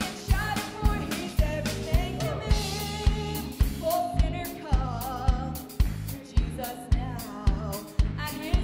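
Live worship band: a woman singing lead over electric bass, piano and drum kit, with a steady beat.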